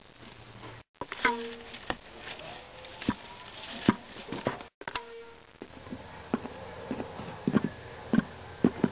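Light, irregular taps and knocks of a plastic Schleich toy horse's hooves being stepped along a play-set floor and through straw, like walking hoofbeats, coming more thickly near the end.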